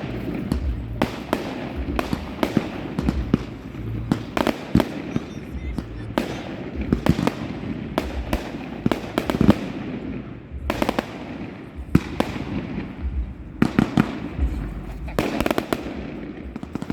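Fireworks going off: a rapid run of sharp bangs and crackles, several every second, over a continuous low rumble.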